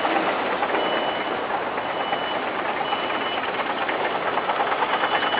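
Backup alarm of heavy construction equipment beeping, a high steady tone about once a second, over the steady running of diesel engines. A quick regular engine chugging grows stronger near the end.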